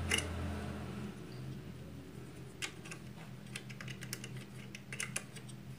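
Light, irregular metallic clicks of a 7 mm open-end wrench working the mounting bolt of a portable sewing machine's motor as it is tightened. The clicks come more often in the second half, and a faint low hum fades out about a second in.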